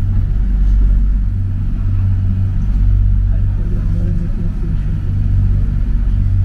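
Mitsubishi Crystal Mover C810A rubber-tyred light rail car running along its guideway, heard from on board as a steady low rumble.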